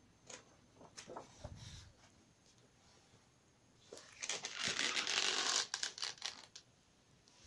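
A large hardback book being handled: light taps and brushing of its cover and pages, then a longer, louder rustling scrape past the middle as the book is turned over.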